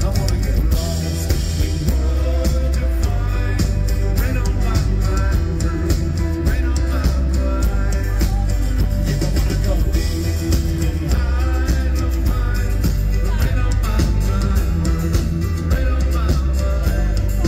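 Live country-rock band playing at full volume: drum kit, bass, electric and acoustic guitars and keyboards through a PA, with a heavy low end and bending melodic lines over the band.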